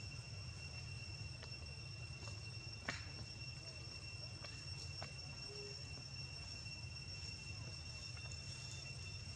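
Steady, high-pitched insect drone of the surrounding forest, over a low rumble. A single sharp click about three seconds in.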